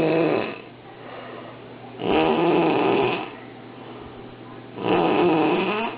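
Loud snoring in a steady rhythm, a snore about every three seconds, each lasting about a second.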